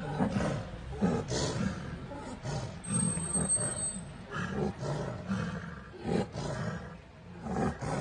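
Tigresses roaring in a string of short, uneven bursts during a fight. A faint high whistle-like tone sounds briefly near the middle.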